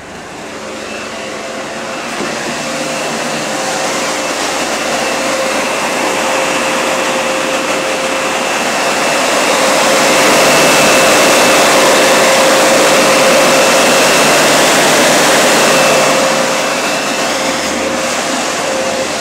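A bus's electric cooling fans running at full blast behind the rear grille: a loud, ear-deafening rush of air with a steady whine over it. It swells over the first several seconds as the microphone nears the grille, then eases off near the end.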